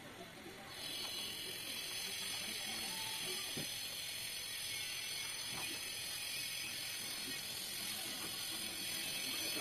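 A steady high hiss, with a few faint clicks over it.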